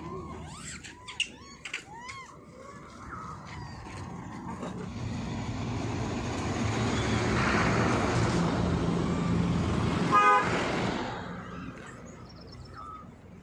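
A motor vehicle approaching and passing close by: its engine and tyre noise build over several seconds, then fade. A short horn toot sounds as it passes.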